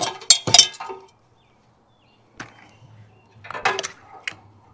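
Sharp knocks and clattering from old satellite TV cables and mounting hardware being handled and pulled down. There is a quick group of knocks at the start, a short pause, then another run of rattling knocks in the second half.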